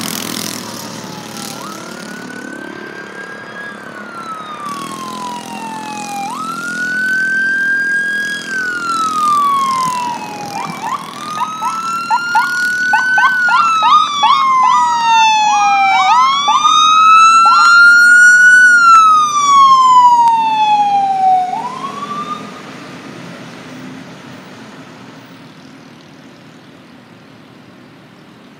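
Electronic emergency sirens on a responding fire engine and ambulance. The siren wails slowly up and down, switches to a fast yelp for a few seconds in the middle, and overlaps with a second siren as the vehicles come closer. It grows loud, then stops after about twenty seconds, leaving steady traffic noise.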